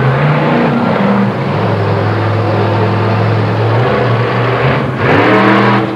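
Monster truck engines running loudly and steadily, with a louder burst of revving about five seconds in.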